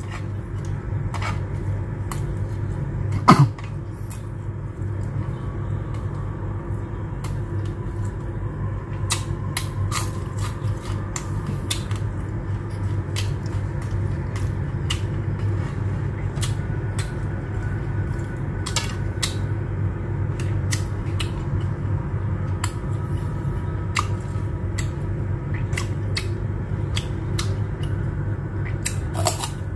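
A person chewing crisp fried shrimp tempura close to the microphone: scattered crunches and mouth clicks, with one louder click about three seconds in, over a steady low hum.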